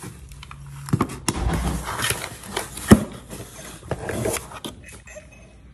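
Packaging of a boxed crystal glass set being pulled open by hand: rubbing and scraping with several sharp knocks, the loudest about three seconds in.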